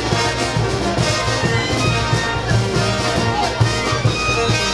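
Brass band playing, with horns holding notes over a steady low beat.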